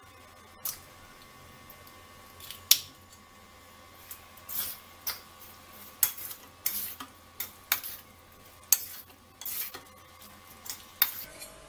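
Metal spoon clinking and scraping against a stainless steel mixing bowl while stirring fish pieces into an egg and flour batter: irregular sharp taps, a couple early on and coming thicker from about four seconds in.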